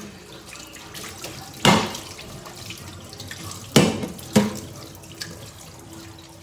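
Kitchen tap running into a stainless steel sink while a metal oven tray is rinsed under the stream. Three sudden loud knocks break through the running water, one about a second and a half in and two close together near four seconds.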